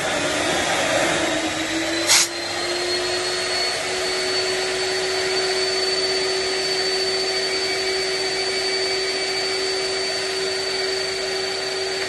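Freddy Micro 100 industrial vacuum motor running under a suction test, its whine rising over the first few seconds as it spools up and then holding steady. A sharp knock comes about two seconds in.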